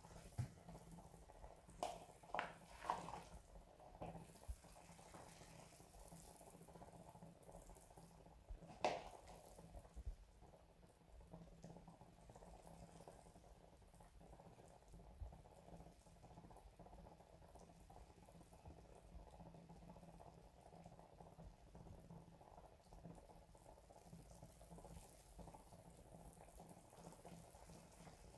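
Faint bubbling of pork broth boiling in a stainless steel stockpot. A few sharper pops and splashes come in the first ten seconds, the loudest about nine seconds in.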